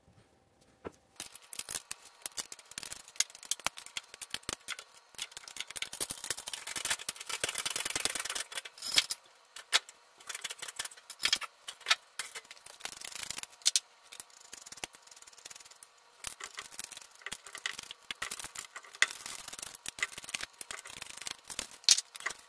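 Nylon zip ties being threaded through rubber leaf-spring pads: irregular clicking of the ties ratcheting through their locks, with rustling and rubbing as the pads are handled, denser for a few seconds in the middle.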